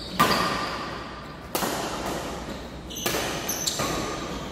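Badminton rackets hitting a shuttlecock in a doubles rally: three sharp hits about a second and a half apart, with a lighter one soon after the third, echoing in a large hall.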